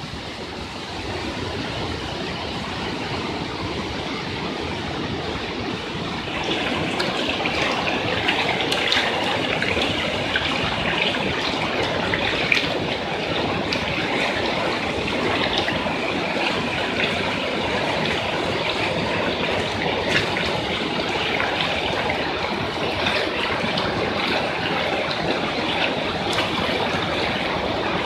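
Rushing floodwater: a steady, noisy rush that grows louder about six seconds in.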